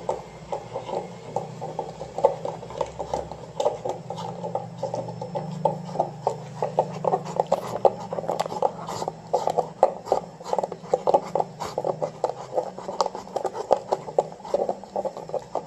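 A Rottweiler chewing on a plastic drink bottle, gnawing at the capped end, with the plastic crackling and clicking several times a second.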